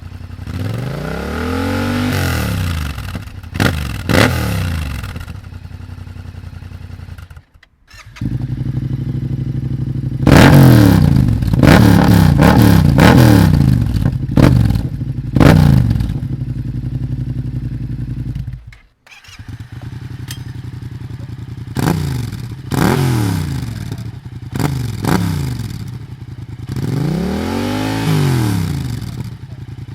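An engine running and being revved up and let back down again and again, with a steady idle between the revs. The sound cuts out abruptly twice.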